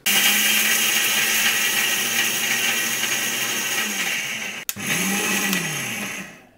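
Indian mixer-grinder (mixie) dry-grinding roasted spices and salt in its steel jar. The motor starts at once and runs at high speed for about four and a half seconds, cuts out for an instant, runs again briefly, then winds down with a falling hum near the end.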